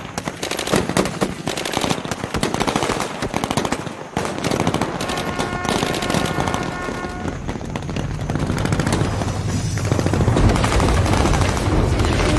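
Rapid, sustained rifle and machine-gun fire in a battle, shots overlapping densely, with a deep rumble building up under it in the second half.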